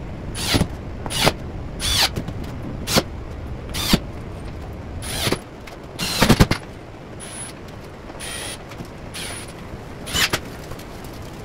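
Ridgid cordless drill driving screws into the play field of a wooden game table in short trigger bursts, its motor whirring up and down in pitch each time. There are about a dozen bursts, one or two a second at first, with two longer ones near the middle and fainter ones later.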